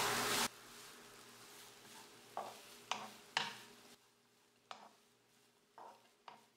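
Grated coconut sizzling in ghee in a nonstick pan, stirred with a wooden spatula; the frying hiss cuts off sharply about half a second in. After that come only about six faint, short scrapes of the spatula against the pan, with near silence between them.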